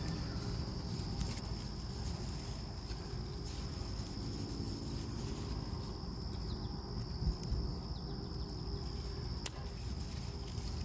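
Insects trilling steadily at one high pitch, over low rustling and handling noise, with a soft click about seven seconds in and another near the end.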